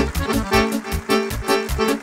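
Live folk-style dance music: an accordion plays a quick melody over keyboard accompaniment and a fast, steady bass beat.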